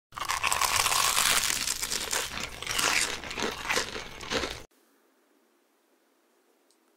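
Dense, crisp crackling and crinkling for about four and a half seconds, then it cuts off suddenly.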